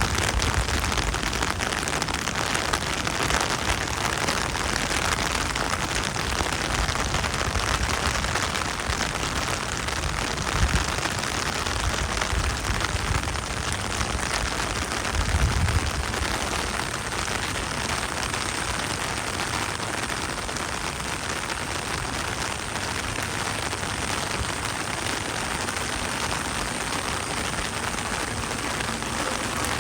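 Steady rain falling and pattering on surfaces, with a couple of brief low thumps about eleven and fifteen seconds in.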